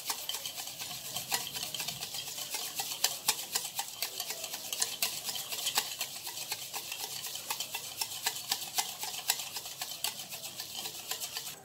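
Wire balloon whisk beating instant coffee, sugar and hot water in a bowl: rapid, steady clicking of the wires against the bowl. The mixture is still thin and liquid, early in being whipped into dalgona coffee.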